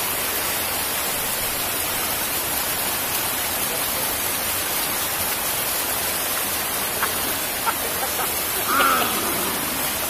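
Water of a waterfall cascade rushing steadily over rock. Two sharp taps come about seven seconds in, and a person's voice is heard briefly near the end.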